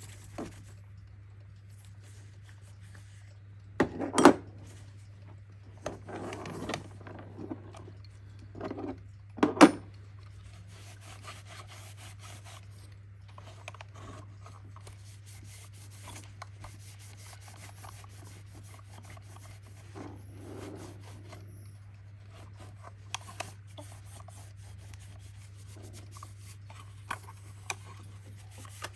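Handling sounds: rubbing and scraping with a few sharp knocks, the loudest about four seconds and nine and a half seconds in, scattered small clicks, and a steady low hum underneath.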